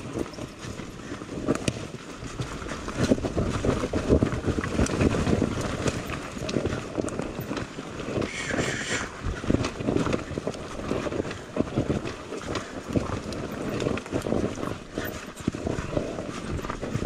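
Footsteps crunching through dry leaf litter and twigs, an uneven run of steps.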